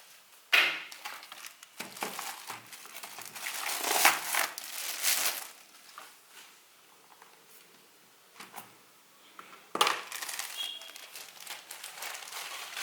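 Packaging being handled and crinkled during a keyboard unboxing, starting with a sharp rustle about half a second in. There are two busy stretches of crinkling and rustling, one around the middle of the first half and one near the end, with a quieter gap of a few soft clicks between them.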